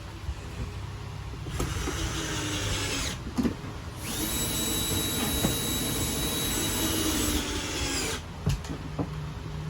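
A small electric motor runs in two bursts, a short one and then a longer one of about four seconds. The longer burst spins up with a rising pitch, then holds a steady high whine before stopping.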